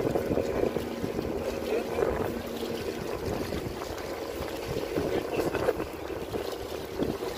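Wind buffeting the microphone in uneven gusts, over water washing against a rocky shoreline.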